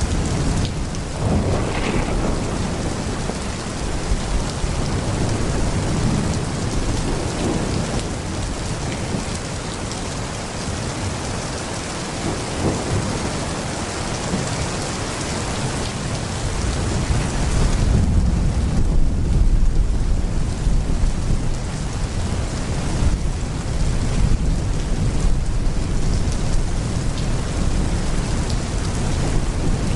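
Pouring rain falling steadily, with thunder rumbling low beneath it; the rumble grows heavier a little past halfway through.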